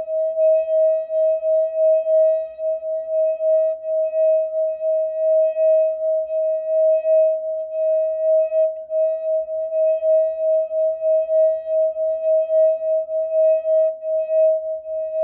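Crystal wine goblet singing under a damp fingertip rubbed around its rim: one steady, pure ringing tone that swells and fades slightly about twice a second as the finger circles.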